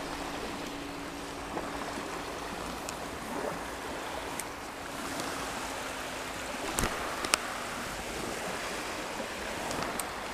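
Small waves lapping along a marshy canal bank, a steady wash with wind on the microphone. A faint low hum stops about two seconds in, and two sharp clicks come about seven seconds in.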